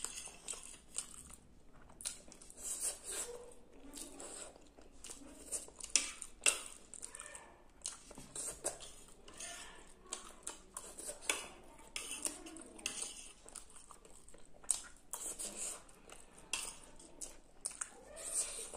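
Metal fork clicking and scraping against a plate as noodles are scooped up, in irregular sharp ticks, with chewing sounds in between.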